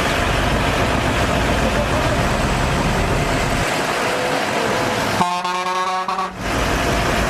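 Heavy earthmoving machinery engine running steadily. About five seconds in, a vehicle horn sounds once for just over a second.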